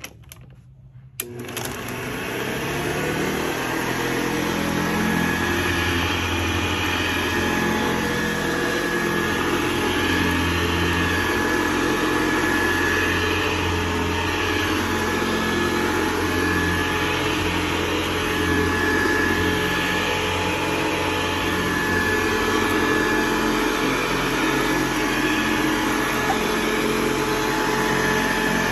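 Vintage Hoover upright vacuum cleaner switched on with a click about a second in, its motor spinning up over a couple of seconds, then running steadily with a steady whine while it is pushed over carpet.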